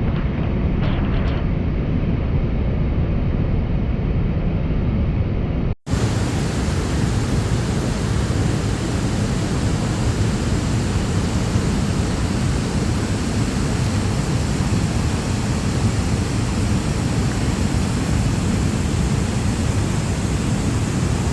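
Goðafoss waterfall roaring: a loud, steady rushing noise. After a brief break about six seconds in, the rush is brighter, with more hiss at the top.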